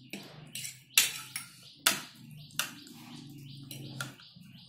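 A person eating noodles close to the microphone: wet chewing and a few sharp clicks from mouth and utensils as a fork and spoon twirl noodles on the plate. The loudest clicks come about one and two seconds in, and a brief low hum follows near the end.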